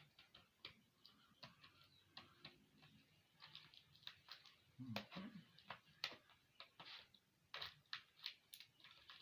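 Faint, irregular small clicks and taps from laptop parts being handled during disassembly.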